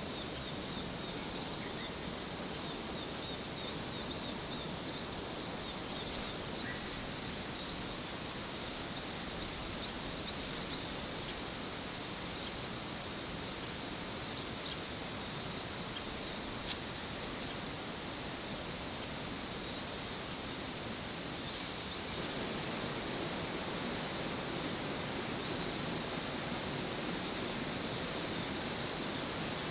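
Steady outdoor background hiss with faint bird chirps now and then and a couple of small clicks; the hiss grows slightly louder about two-thirds of the way through.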